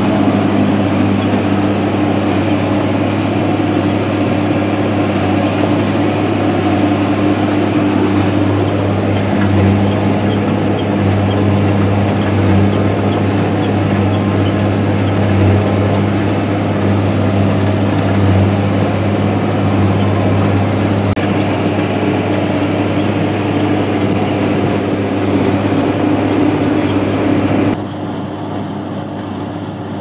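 Tractor engine running steadily under load, driving a New Holland large square baler through the hay, heard from inside the tractor cab. Near the end the sound drops and becomes duller.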